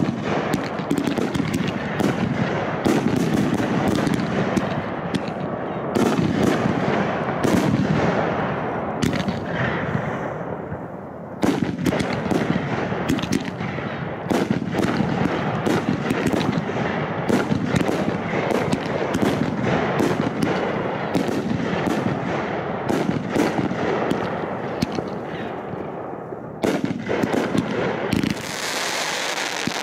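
Fireworks display firing continuously: a dense barrage of booms and sharp cracks over a steady rumble, with a hissing crackle near the end.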